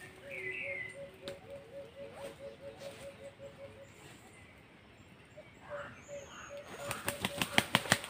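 Forest birds: a run of short, low, evenly repeated notes at about four a second, heard twice, with a brief higher call near the start. Near the end comes a quick run of sharp rustling clicks, the loudest part.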